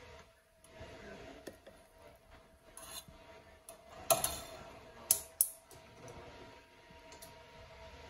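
Metal utensil clinking and scraping against a ceramic bowl while mashing boiled potatoes with butter, with three sharp clinks a little past the middle, the loudest, and a few fainter ones earlier.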